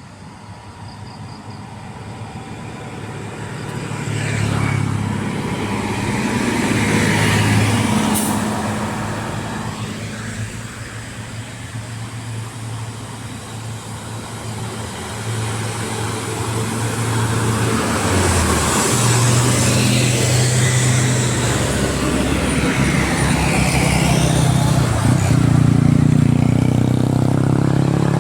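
Heavy diesel buses or trucks climbing an uphill road past the listener, engines labouring with a deep rumble. The sound swells and fades several times as the vehicles go by.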